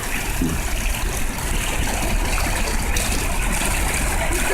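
A steady rushing noise with a deep rumble underneath, and no distinct events.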